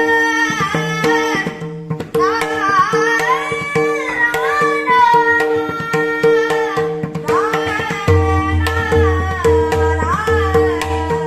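A man singing a Marathi devotional song in an ornamented, gliding style, with tabla strokes and steady held drone notes underneath. Low bass notes come in about eight seconds in.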